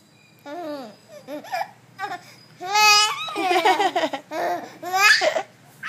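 Young baby babbling and cooing in a string of short vocal sounds, with a loud high-pitched squeal about three seconds in.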